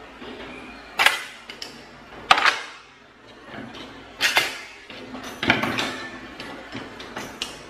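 Wooden spoons knocking against a bamboo cutlery tray and the drawer as they are put in: four sharp knocks spread over the few seconds, with lighter rattling of utensils between.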